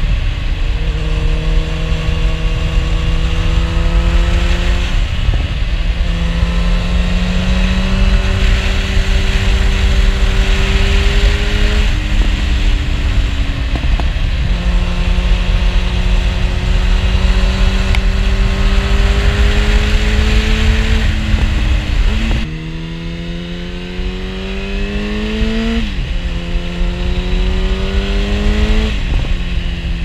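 2013 Yamaha FZ8's inline-four engine through an SC-Project carbon oval exhaust, pulling up through the gears while riding: the pitch climbs in each gear and drops at each of several upshifts. Heavy wind rumble on the microphone; about two-thirds in the wind noise suddenly drops and the climbs between shifts become shorter and quicker.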